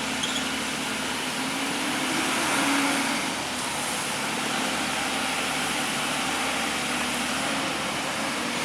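Large Volvo hydraulic excavator's diesel engine running steadily under load, rising briefly about three seconds in.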